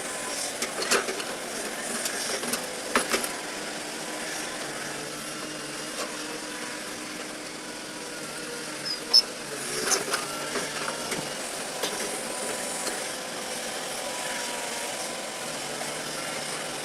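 A vehicle engine running steadily, with a few sharp knocks and clicks over it, the loudest about nine seconds in.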